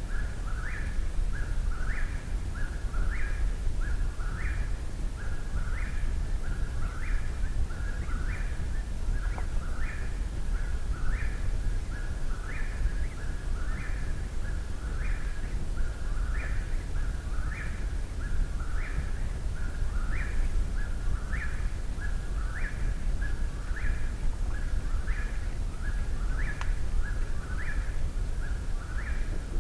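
An eastern whip-poor-will singing its three-note 'whip-poor-will' phrase over and over, about once a second without a pause, one of the most repetitive bird songs there is.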